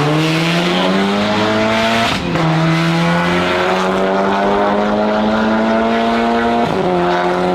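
Mercedes car engine and modified exhaust accelerating hard: the note climbs steadily, drops twice with upshifts about two seconds in and near the end, then climbs again.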